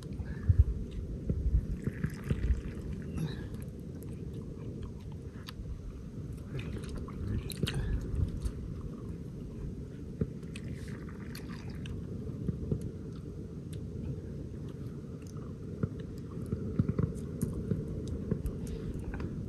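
Small wood campfire crackling, with scattered sharp pops and ticks over a steady low rumble.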